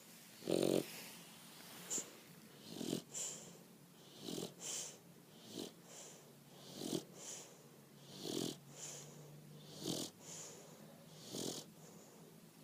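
A bulldog snoring in an even rhythm, about one breath every second and a half. Each low snore is followed by a high, airy hiss.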